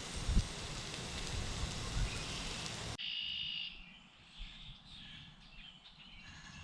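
A steady frying sizzle from veggie bacon in a pan, with wind buffeting the microphone in low gusts. About three seconds in, it cuts suddenly to a much quieter outdoor background with a few faint bird chirps.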